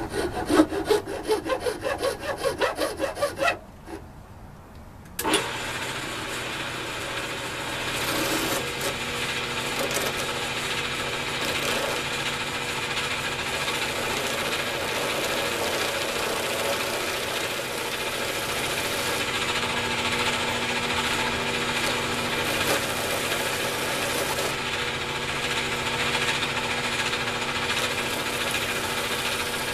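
Turning tool cutting a cocobolo pen blank spinning on a wood lathe: first a fast rattling run as the tool meets the corners of the square blank, a short pause about three and a half seconds in, then a steady continuous cut as the blank is turned round, with the lathe's motor hum underneath.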